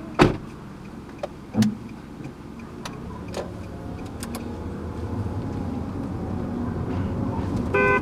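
Inside a car: a sharp knock about a quarter second in and another about a second and a half in, then the car's engine and road noise building steadily as it gets moving. Near the end comes one short car-horn honk, a recorded horn played through a speaker in the back of the car.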